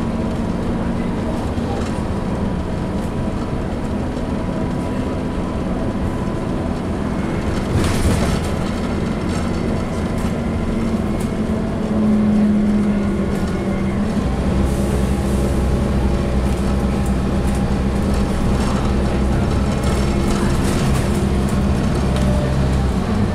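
Scania N230UD double-decker bus's diesel engine and drivetrain heard from inside the passenger saloon while driving, a steady hum with a humming whine over it. There is a brief rattle about eight seconds in, and from about fourteen seconds in a low engine drone grows stronger.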